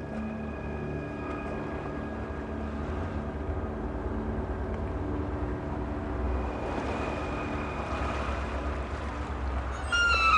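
Low, steady rumble of a motor boat's engine running, with steady held tones over it. Near the end, loud music with strings comes in suddenly.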